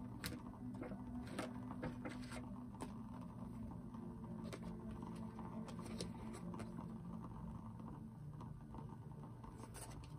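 A deck of Wisdom of the Oracle cards being shuffled by hand: soft, scattered flicks and taps of the cards.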